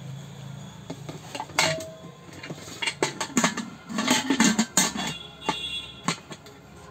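Stainless steel Prestige Nakshatra Svachh 5-litre pressure cooker being handled and its lid fitted and turned onto the pot: a run of metal clinks and knocks of steel on steel, with brief ringing from the metal.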